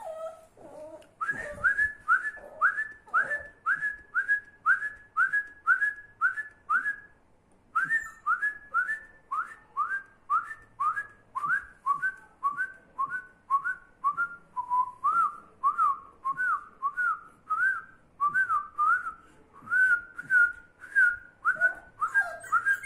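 A person whistling a long run of short chirps, about two a second, with a brief pause about seven seconds in; the pitch dips lower in the middle and then rises again.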